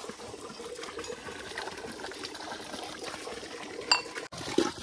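Water running steadily from a village standpipe tap, with a sharp metallic clink of a pot near the end.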